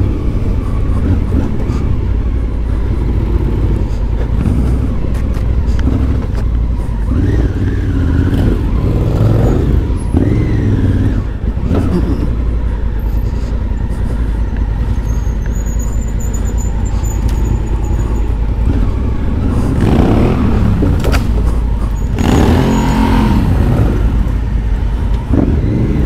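Adventure motorcycle engine running at low trail speed, the throttle rising and falling.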